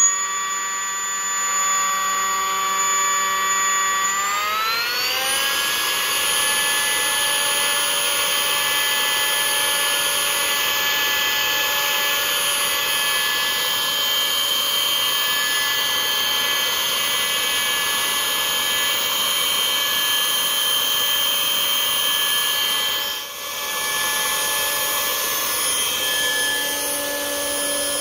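Powerfun 50mm 4300kv electric ducted fan in a Skyangel Screamer foam jet, run up gently on a 4S LiPo: a steady high whine. It climbs smoothly to a higher pitch a few seconds in and holds there, with a brief dip in level late on.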